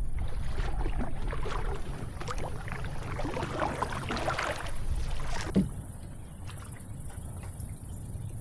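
Fishing kayak moving on the water: splashing and small knocks against the hull, with one sharper knock a little past halfway, then quieter.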